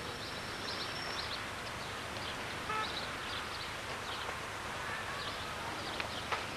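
Steady outdoor background noise with faint, scattered short bird chirps; one slightly longer call comes near the middle.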